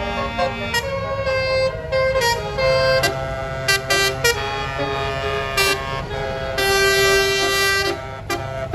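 Bus telolet horn, a multi-trumpet Basuri air horn, playing a tune of stepping notes, with several tones sounding together and a longer held chord near the end. Engine and traffic rumble runs underneath.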